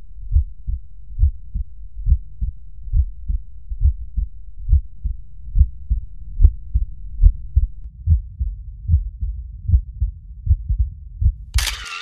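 Healthy heart sounds through an electronic stethoscope at the mitral area: a steady lub-dub about once a second, with low, dull thumps. During deep breathing the second sound splits audibly into its aortic and pulmonary parts, a normal physiological split. A short rushing sound comes in just before the end.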